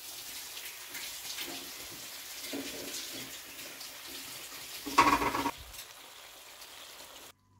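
Chicken karahi sizzling in a steel karahi on the stove: a steady soft hiss, with a brief louder sound about five seconds in.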